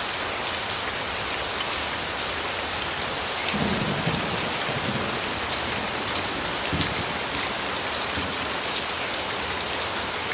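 Steady rain falling and pattering on surfaces, with a low rumble of thunder about three and a half seconds in that lasts over a second, and a shorter rumble near seven seconds.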